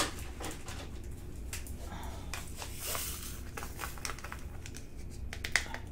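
Small resin diamond-painting drills being poured and shaken into a plastic tray, with plastic bags crinkling: a short rush of pouring about two and a half seconds in, then many small clicks as the drills settle.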